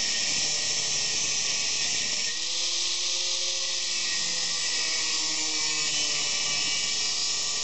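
Angle grinder with a thin cut-off disc cutting through steel angle iron: a steady, harsh, high-pitched grinding hiss that runs without a break.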